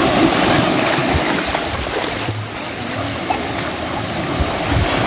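Small sea waves breaking into foam and washing over the shallows at the shoreline: a steady rushing and splashing of water.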